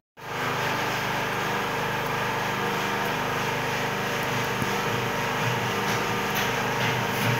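Steady hum of a small motor running at a constant speed.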